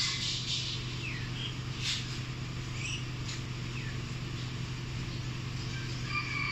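Small birds chirping a few short gliding notes over a steady low mechanical hum, with a couple of brief clicks.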